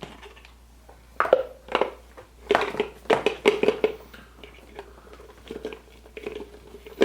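Foil wrapper of a Kinder Surprise chocolate egg being crinkled and peeled off by hand, in short bursts of crackling.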